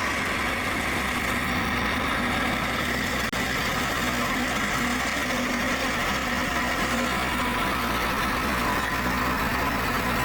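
Rippa RS06 skid steer loader's engine running steadily, with a brief momentary break about three seconds in.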